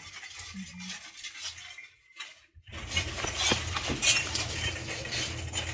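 Handling noise of a phone being carried and turned while filming: rustling and light clinks and clicks. About two seconds in the sound drops out for a moment, then a steady low hum runs under the rustling.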